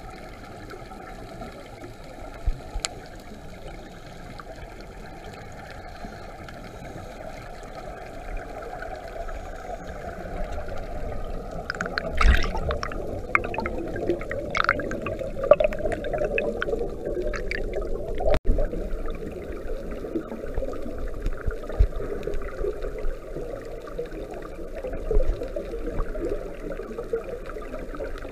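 Scuba divers' regulator bubbles heard underwater: a steady muffled water rush. About twelve seconds in, bursts of bubbling and crackling start and recur every few seconds.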